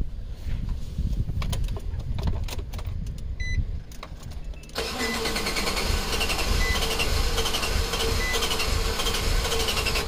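2014 Nissan NV200's 2.0-litre engine cranking on the starter with a steady whine, from about halfway in, without catching: the hot crank-no-start tied to a P0340 camshaft sensor circuit code. Before it, a few light clicks and a short electronic beep.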